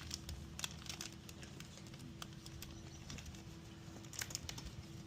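Faint, scattered clicks and light taps from small parts being handled as a drain plug's old washer is swapped for a new one, over a low steady hum.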